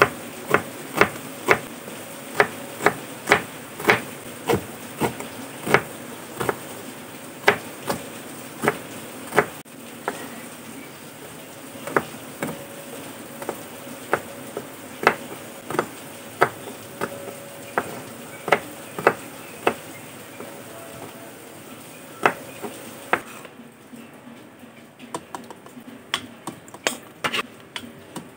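Kitchen knife slicing red onion and red chilies on a plastic cutting board: single sharp knocks of the blade on the board, one or two a second, stopping about 23 seconds in. Near the end, lighter and quicker tapping.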